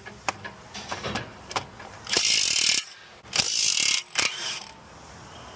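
Socket ratchet working a bolt loose in two quick runs of clicking, each under a second, after a few scattered tool clicks.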